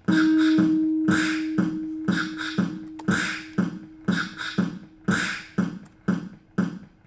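Sequenced loop of recorded beatbox-style vocal percussion: mouth kick and hissing hi-hat hits repeating at about two a second in a steady rhythm. A held low note starts with the loop and fades away over several seconds.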